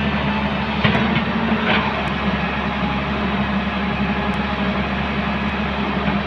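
Heavy diesel engine of an excavator running steadily while working, with a few short knocks about one to two seconds in.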